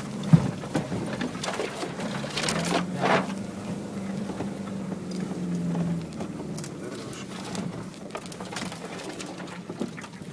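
Off-road vehicle engine running at low revs, heard inside the cabin as a steady low hum. Short knocks and rattles come through as it crawls over a rough, overgrown forest track, with a sharp knock near the start and a cluster about two and a half seconds in.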